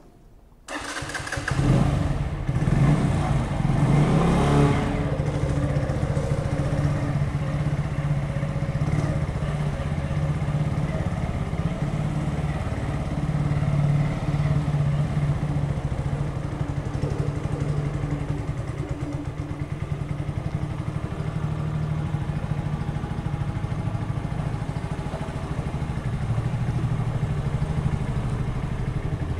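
Keeway Superlight 125's single-cylinder four-stroke engine cutting in abruptly about a second in, rising in level for a few seconds as it is revved, then running steadily.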